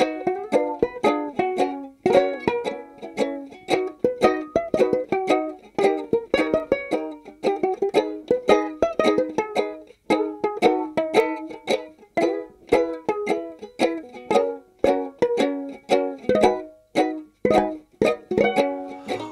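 Music: a quickly picked acoustic string instrument playing a fast run of single notes and chords, with no singing.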